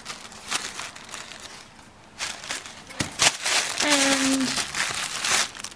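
Tissue paper rustling and crinkling as items are handled in it, in several bursts, loudest in the second half.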